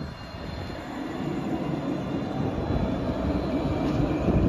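Alstom Citadis tram pulling away from a stop and rolling past on its rails: a low rumble that grows steadily louder, with faint high electric tones above it.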